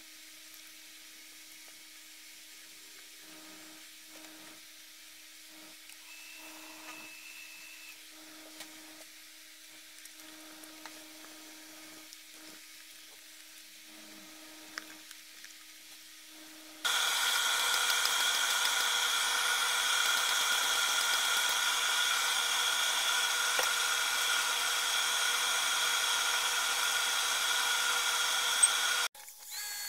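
Wood lathe spinning a pepper mill blank while a cloth applicator is rubbed on the turning wood. About 17 seconds in, a much louder steady machine sound with several steady tones starts suddenly, and it cuts off abruptly near the end.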